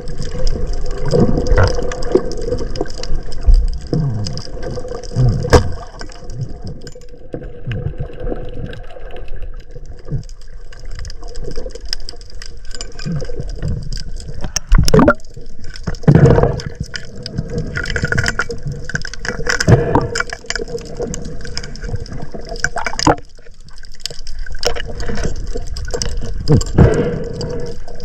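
Water sloshing and gurgling close to the microphone, with irregular swells and a few sharp knocks.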